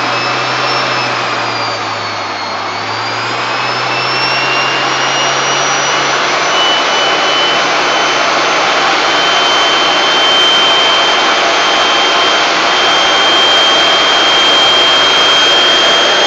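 Advanced DC A00-4009 series-wound brushed DC motor running loud at high speed, a steady rush with a high whine. The whine dips briefly about two seconds in, then climbs and holds steady.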